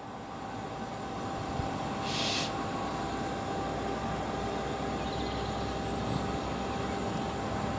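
Class 66 diesel-electric locomotive's EMD two-stroke V12 engine running as it approaches, growing louder over the first two seconds and then holding steady. There is a brief hiss about two seconds in.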